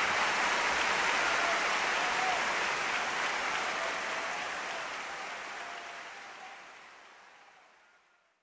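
Audience applause, a dense steady clatter of clapping that fades out gradually over the last several seconds.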